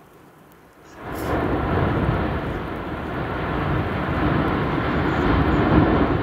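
Erupting volcanic vent jetting a lava fountain and ash column: a loud, continuous thunderous roar that rises sharply about a second in and then holds.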